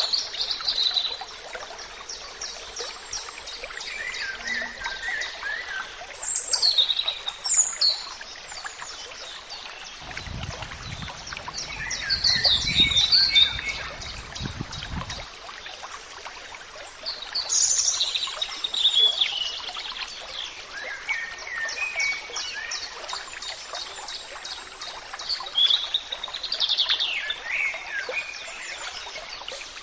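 Birds chirping and singing in short repeated phrases over a steady hiss of running water. A low rumble comes in about ten seconds in and lasts some five seconds.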